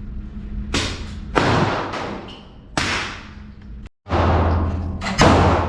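Gunshots at an indoor range: about five sharp reports, irregularly spaced, each followed by a long echoing decay off the range walls.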